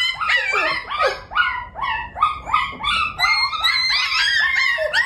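A dog giving a rapid, unbroken string of high whining cries, about three a second, each dropping in pitch.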